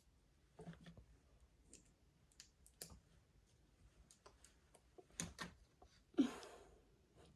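Small plastic Lego pieces clicking and rattling as they are handled and pressed together: scattered light clicks, with a louder clatter about six seconds in.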